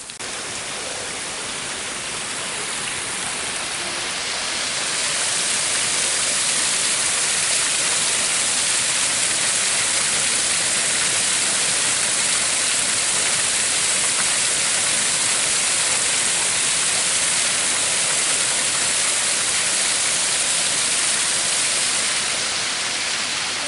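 Rushing water, a steady hiss that swells over the first several seconds, holds, and eases slightly near the end.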